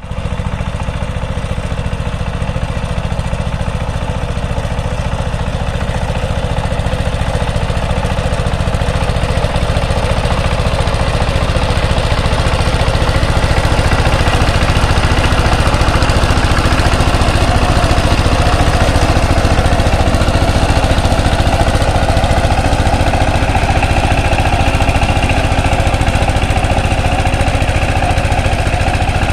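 16 hp single-cylinder diesel engine of a two-wheel power tiller running steadily under load while tilling, a fast even chugging that grows louder over the first half.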